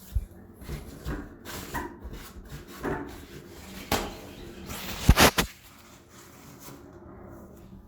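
Scattered handling noises in a toilet room: short knocks, clicks and rustles, with a louder clatter about five seconds in, then quiet.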